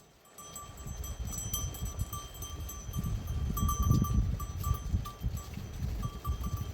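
Herd bells on goats and sheep jingling and clanking as the flock moves, over an irregular low rumble.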